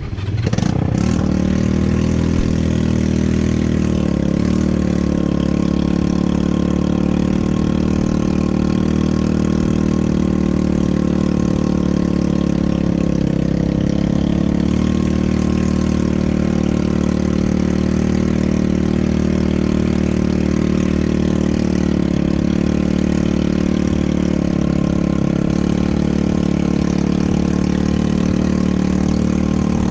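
ATV engine running steadily. Its pitch settles in the first second and then holds nearly even, with only small wavers in speed.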